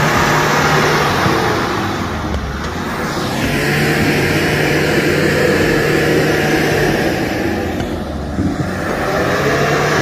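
SUV engine running at high revs under load during a tow recovery out of mud. The revs ease off briefly twice, about two seconds in and again about eight seconds in.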